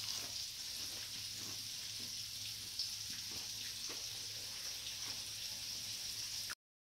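Hot grapeseed oil sizzling in a frying pan: a quiet, steady sizzle with faint scattered crackles that cuts off suddenly near the end.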